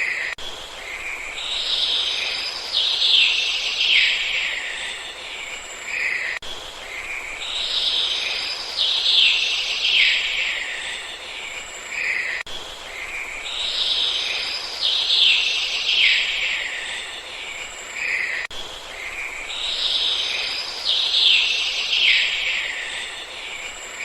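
Flowing river water with birds calling over it, in a loop of about six seconds repeated four times.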